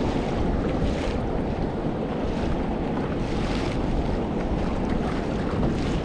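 Wind buffeting the microphone over water sloshing and lapping against a Hobie fishing kayak's hull as it moves across open sea, with a few brighter splashes.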